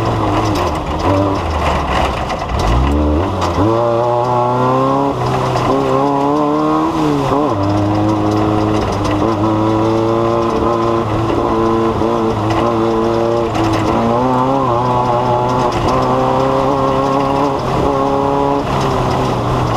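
Off-road race vehicle's engine running hard under load, its pitch rising and falling as the throttle and gears change. There is a sharp climb in pitch a few seconds in and another at about seven seconds, and it holds fairly steady after that with small wavers.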